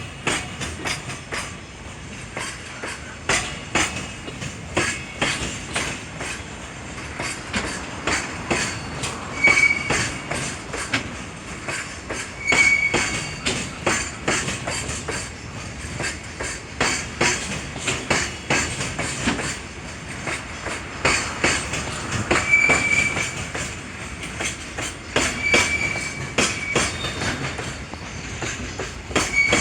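Long JR Freight freight train rolling past, its wagon wheels clicking steadily over rail joints, with short high wheel squeals now and then.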